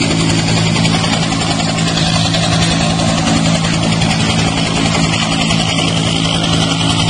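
An engine running steadily at a constant pitch, a low hum under a wash of noise.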